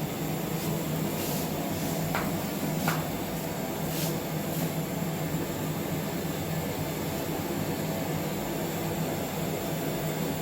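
Steady mechanical hum and hiss of running lab equipment, with a few faint clicks and two short rising squeaks about two and three seconds in.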